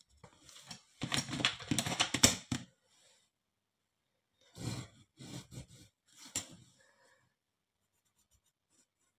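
Plastic protractor and set square shuffled and scraped on paper, then a pencil scratching along the set square's edge in a few short strokes while ruling a perpendicular line.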